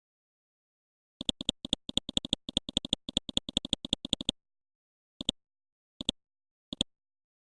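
A series of short, sharp clicks: a quick irregular run for about three seconds starting a second in, then three single clicks spaced out toward the end.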